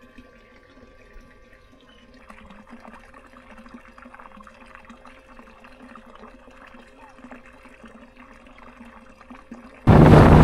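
Faint lapping of calm water against the hull of a drifting small boat. Just before the end the sound jumps to a boat running at speed: loud wind buffeting the microphone over the steady drone of its outboard motor.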